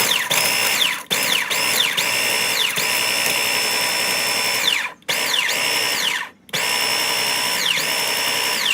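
Electric food chopper's motor running in pulses, grinding Cheeto Puffs to fine crumbs; its high whine repeatedly sags and climbs back in pitch, and it stops briefly about a second in, about five seconds in and again about six seconds in.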